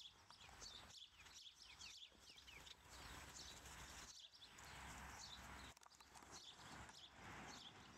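Near silence: faint outdoor ambience with frequent short, high, falling chirps of small birds.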